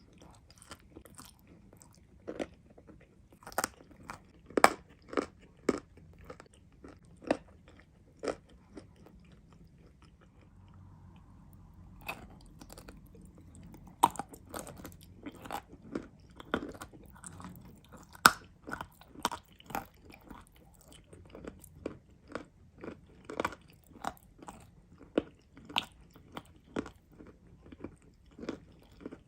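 A person biting and chewing crunchy clay, with sharp, irregular crunches close to the microphone. The crunching eases off briefly around a third of the way in, then picks up again, denser than before.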